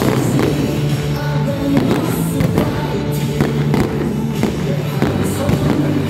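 A medley of SSG Landers team cheer songs playing, with fireworks shells banging and popping several times over the music.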